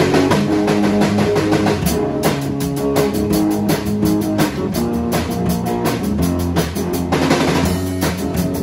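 A small rock band playing: a drum kit keeping a fast, steady beat under electric guitars playing chords.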